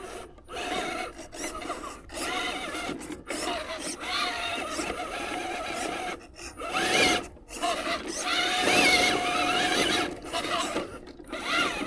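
Electric RC rock crawler's motor and geared drivetrain whining in bursts as it is throttled on and off up a steep rock, with short pauses between bursts and a pitch that rises and falls with the throttle.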